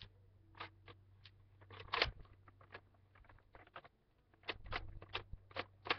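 Irregular sharp clicks and knocks of hard plastic as a Nerf Vulcan blaster is handled and its parts worked on, with one loud knock about two seconds in.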